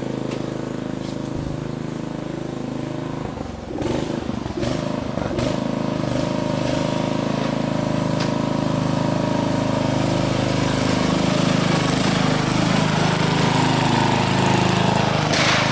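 Agway riding lawn tractor's engine running steadily, growing louder from about four seconds in as it drives up close, with a short crunch near the end.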